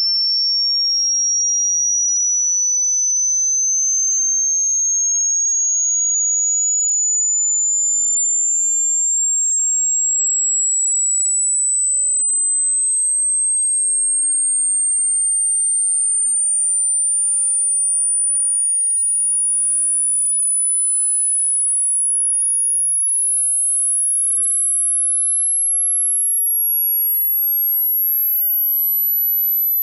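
Pure sine test tone of a hearing-age test, a single steady tone that climbs in small steps about once a second from a high whistle to a very high, thin one. The rising pitch probes high-frequency hearing, which fades with age (presbycusis).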